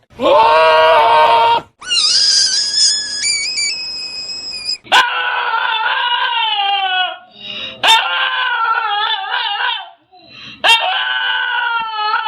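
A run of comic animal cries: a short call repeated, then a high whistling tone that steps up in pitch, then three long wails that slide downward, each starting with a sharp click.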